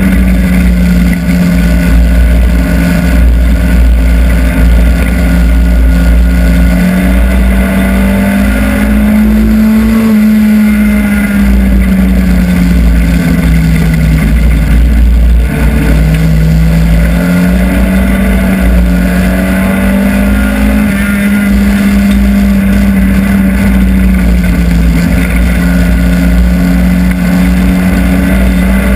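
Hobby stock race car's engine at race pace, heard from inside the cockpit. It is loud, with the revs sagging about halfway through as the car goes into a corner, then climbing again and holding.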